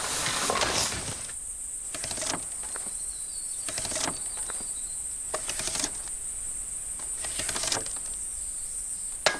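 Insects droning steadily at a high pitch, with five rasping, swishing strokes about every second and a half and a sharp click near the end, from bamboo culms being worked by hand.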